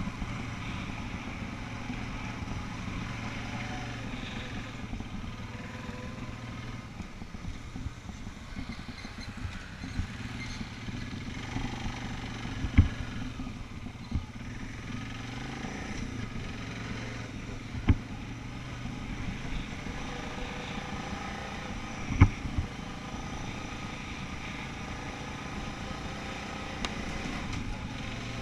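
ATV engine running steadily under way along a rough trail, its note wavering slightly. Three sharp knocks stand out in the middle.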